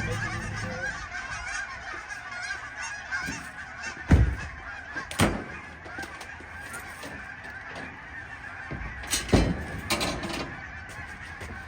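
A large flock of birds calling continuously in the background, many calls overlapping. Several loud thumps cut through it, around four, five and nine seconds in.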